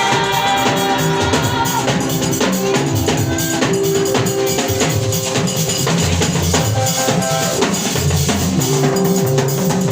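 Church praise music with a drum kit keeping a steady, busy beat under sustained instrumental notes.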